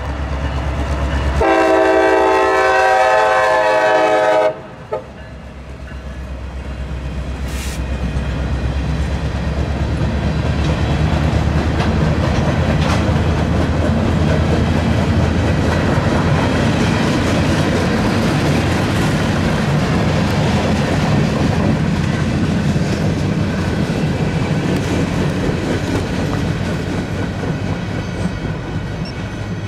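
A CSX freight locomotive sounds its horn in one long blast of about three seconds, a chord over the low drone of its diesel engine, and both drop away as it passes. Then the freight cars roll by in a steady rumble, wheels clicking and clattering over the rail joints, easing slightly near the end.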